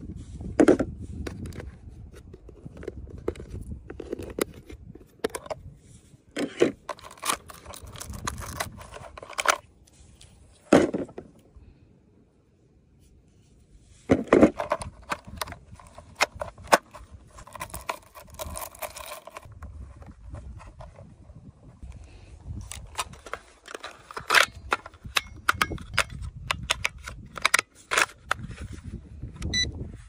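Plastic clicks, knocks and scrapes from hands handling a small remote-control speedboat: opening its hull hatch and fitting the battery. The sharp clicks are scattered irregularly, with a short quiet pause in the middle.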